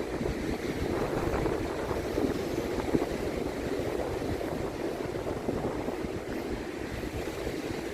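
Wind buffeting the microphone over a steady rush of sea on the beach, with no engine or voice heard.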